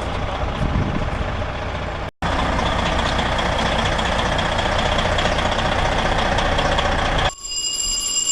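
Loud, steady, noisy din with a deep rumble, broken by a short dropout about two seconds in. About seven seconds in it cuts abruptly to a building fire alarm sounding a steady, high-pitched electronic tone.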